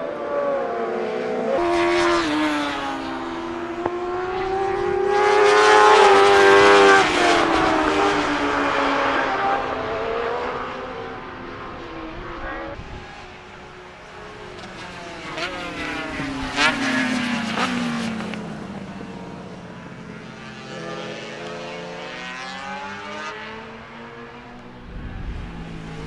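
Motorcycles passing one after another at speed on a race circuit. Each engine note rises as the bike approaches and drops as it goes away. The loudest pass comes about six seconds in, with further passes around sixteen and twenty-two seconds, and a few sharp pops during the pass around sixteen seconds.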